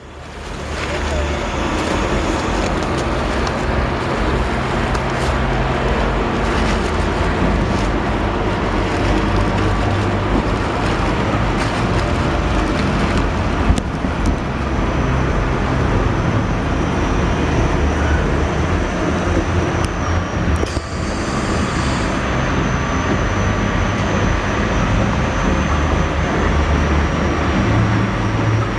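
Continuous loud rushing noise of a boat-and-water amusement ride, with voices faintly underneath.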